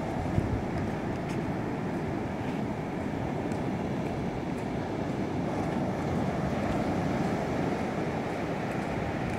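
Small ocean waves breaking and washing up a sandy beach: a steady low rush of surf.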